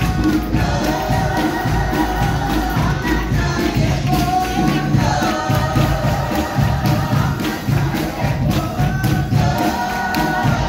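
Church choir singing a gospel-style hymn with accompaniment, voices holding and moving between sustained notes.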